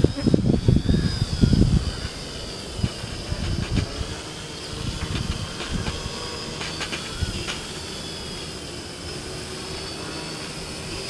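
F450 quadcopter's brushless motors and propellers whining, the pitch rising and falling as the throttle changes. Heavy low buffeting on the microphone for about the first two seconds.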